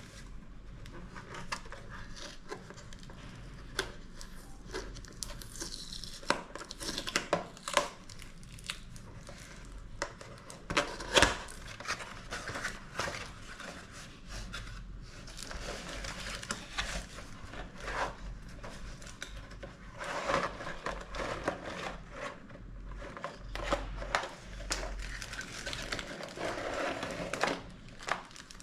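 Packaging of a car fog light wiring harness kit being opened and its parts handled: plastic crinkling and tearing with irregular handling clicks, on and off throughout.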